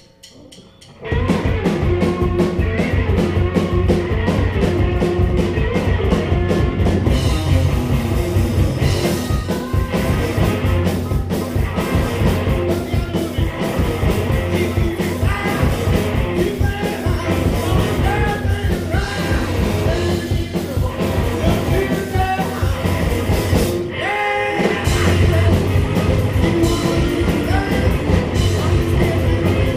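Rock band playing live, kicking in loud about a second in with a steady beat; the band drops out briefly near the end and comes back in.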